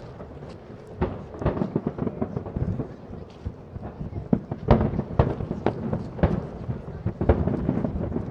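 Aerial firework shells bursting in quick succession: a rapid run of sharp bangs, each with a rumbling echo. They come thickest from about halfway through.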